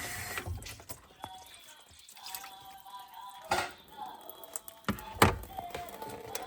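Water dripping from a disconnected sink drain line, with a few sharp knocks and clicks of plastic drain fittings being handled, the loudest about three and a half and five seconds in.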